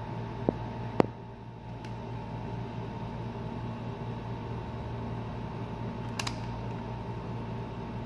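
Steady low hum of workbench room tone with a fan-like whir, broken by two sharp clicks about half a second apart near the start and a brief rustle about six seconds in.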